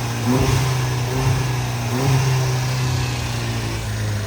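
Car engine running steadily, with a few short, light revs in the first couple of seconds.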